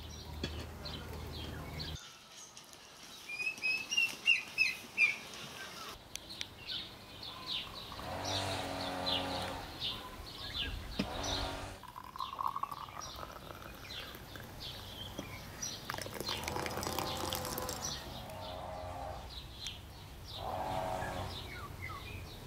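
Small birds chirping and twittering, loudest a few seconds in, with a few longer, lower pitched calls among them.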